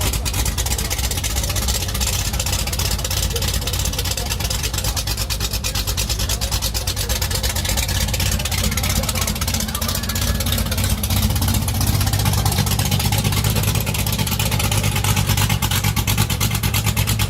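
1968 Chevrolet Camaro's big-block V8 running with a loud exhaust, a steady low rumble. About eleven seconds in, the rumble grows stronger.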